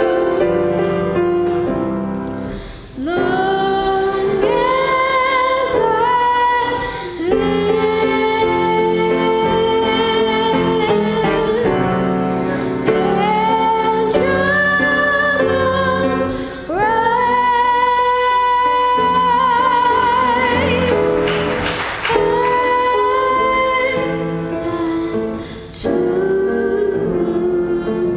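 A young girl singing solo into a microphone, a melody of long held notes that slide up into pitch, with short breaths between phrases.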